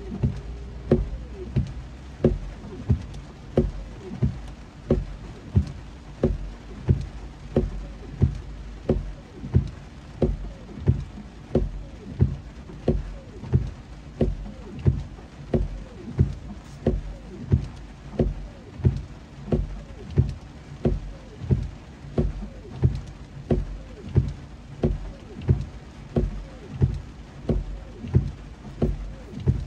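Car windshield wipers running fast in heavy rain, each sweep ending in a dull thud, about one and a half a second, over a steady hiss of rain and road noise heard inside the car.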